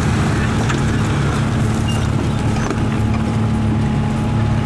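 A vehicle engine running steadily at an even speed, with no revving.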